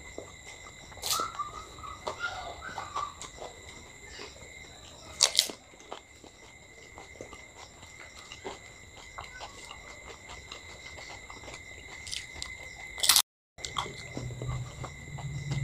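Chewing, biting and crunching as two people eat puchka, crisp hollow fried shells, some filled with dahi, and other chaat by hand. Three sharper crunches stand out among many small ones: about a second in, about five seconds in, and near the end. A faint steady high whine sits underneath.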